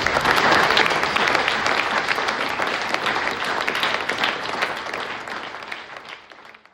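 Audience applauding, loudest at first and fading out near the end.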